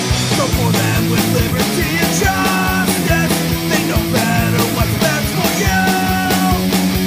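Punk rock band recording playing loudly, with a steady drum beat under a dense wall of band sound.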